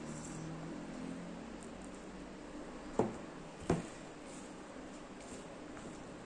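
Hand rubbing and squeezing oiled flour in a plastic bowl while working in water for dough, quiet and soft. About three seconds in come two sharp knocks, under a second apart.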